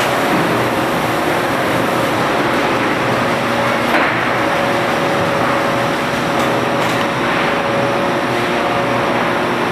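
Industrial machinery running steadily: a dense mechanical noise with a constant hum, and one short knock about four seconds in.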